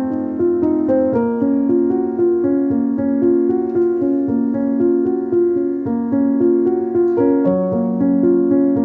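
Background music: a gentle piano melody with chords, the notes changing about twice a second.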